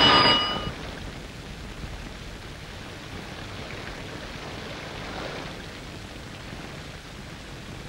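An electric bell rings and cuts off within the first second, followed by the steady hiss of heavy rain.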